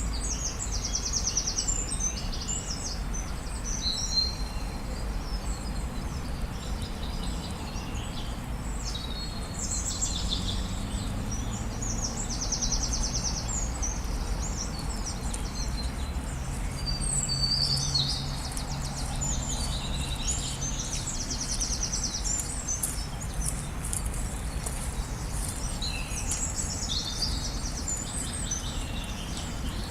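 Several wild birds chirping and calling, with short rapid trills repeating every few seconds, over a steady low background rumble.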